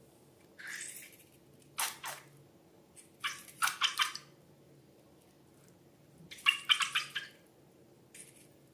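Slime and liquid slime ingredients squelching and splashing in short wet bursts, about five times, with the loudest cluster a little past halfway.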